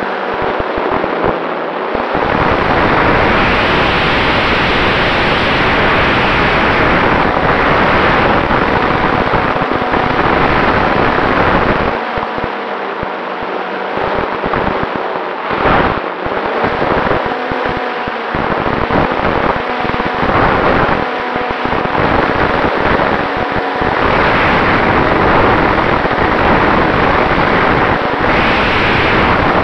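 Wind rushing and buffeting over the microphone of a camera riding on a flying RC warbird, with the steady whine of its Cobra brushless electric motor and propeller underneath. The low buffeting eases for short spells now and then.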